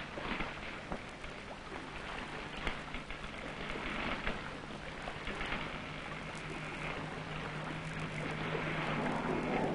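Steady wind and sea wash aboard a sailing ship, with a steady low hum and many small clicks and crackles.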